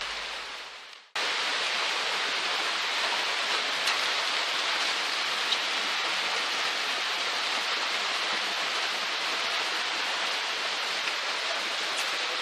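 Steady hiss of noise that starts abruptly about a second in and holds level, with a few faint ticks.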